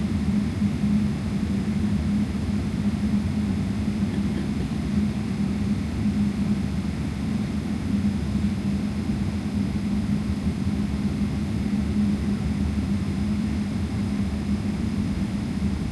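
Steady cabin noise inside a Boeing 777-300ER: an even rumble of the airflow and GE90 engines, with a steady low hum.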